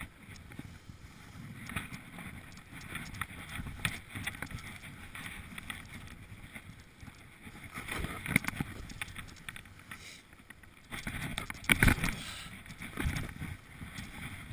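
Snow hissing and crunching under a rider sliding fast downhill, with wind buffeting the microphone. Scattered knocks run through it, with a hard bump a little past halfway and a louder one near the end.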